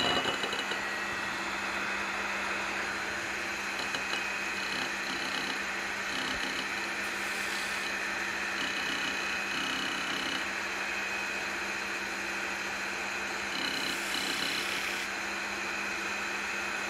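Wood lathe running steadily, spinning a magnolia bottle blank with no cutting: an even motor hum with a constant high whine.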